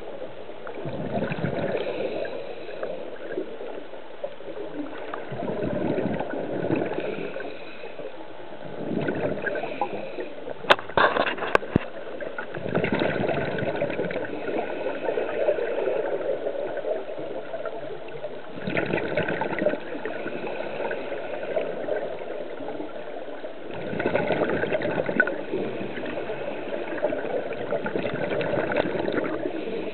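River water gurgling and rushing, swelling and easing every few seconds, with a few sharp clicks about eleven seconds in.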